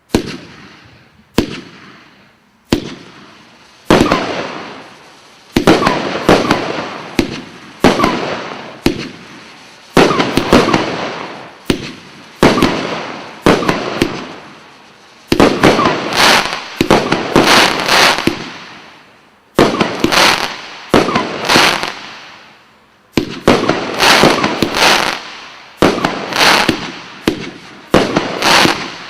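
Dragon King multi-shot firework going off: a long run of loud bangs, each trailing off over a second or so, at times coming one or two a second.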